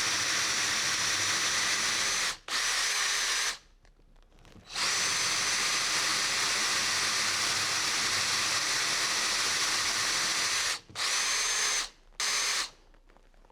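Electric drill boring a large hole through a timber gate for a lock cylinder, running steadily with a high whine. It stops briefly twice, runs again, then gives two short bursts and stops near the end.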